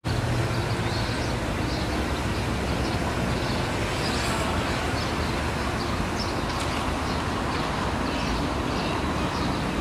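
Ford F-250 pickup engine idling: a steady, even low rumble.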